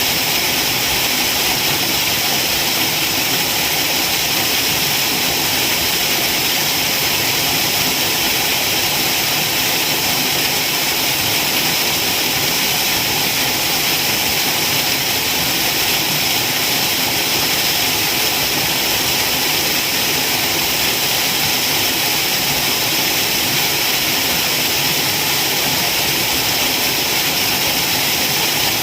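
Waterfall: a steady, unbroken rush of falling water, mostly a bright hiss.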